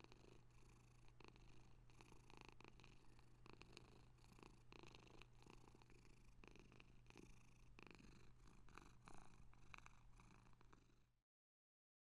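Faint campfire ambience: scattered crackles and pops of burning wood over a steady low hum, cutting off about a second before the end.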